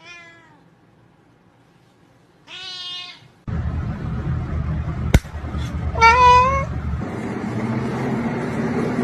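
A cat meowing three times, short calls a few seconds apart, the first falling in pitch. A steady background noise starts about three and a half seconds in, with one sharp click midway.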